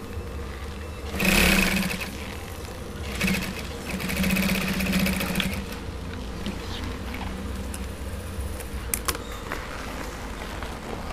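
Industrial sewing machine stitching leather in three short runs, each a rapid needle rattle, within the first six seconds. Its under-table motor hums steadily between runs, and a couple of sharp clicks come near the end as the stitching stops.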